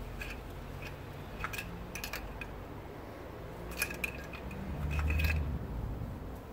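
A thick wire being pushed and worked inside a VW Golf 3's oil dipstick tube to scrape out oily emulsion: scattered light metallic clicks and scrapes, some in quick pairs, with a low muffled bump about five seconds in.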